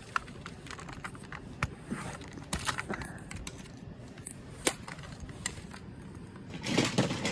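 Toy cars being handled on a hard surface: scattered light plastic clicks and taps, with a louder stretch of rattling and rubbing near the end.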